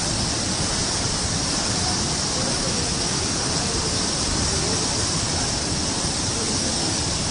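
A river in flood, its muddy floodwater rushing past in a steady, unbroken rush.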